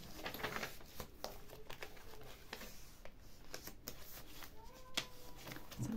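Paper and card pages of a handmade junk journal being handled and turned: soft rustling and light clicks of stiff paper and vellum sheets.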